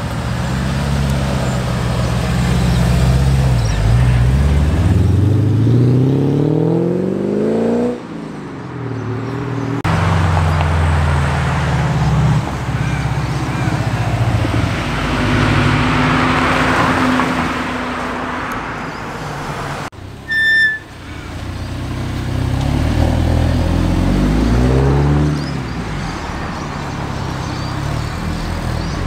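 Performance cars pulling away one after another, each engine revving up in rising pitch as it accelerates: a black Holden sedan first, then a blue Subaru WRX STI with its turbocharged flat-four, then a white Mercedes-AMG A45's turbo four. A single short high beep sounds about two-thirds of the way through.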